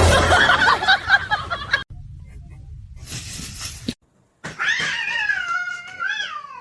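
A cat meowing in one long, drawn-out call of wavering pitch that falls away at the end, in the second half. Before it comes a loud jumble of overlapping sounds, then a short hiss.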